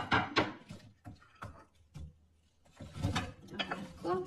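Wooden spatula scraping and knocking against a nonstick frying pan as apple slices are stirred in melted butter, in short irregular strokes with a brief pause about two seconds in. Near the end more apple slices slide off a plate into the pan with a clatter.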